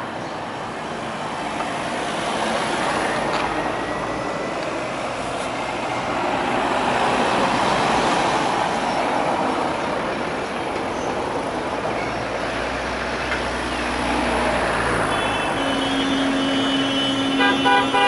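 A motorcade of cars driving past one after another, engine and tyre noise rising and falling as each passes. Near the end a car horn is held for a couple of seconds, then several horns toot in quick repeated beeps.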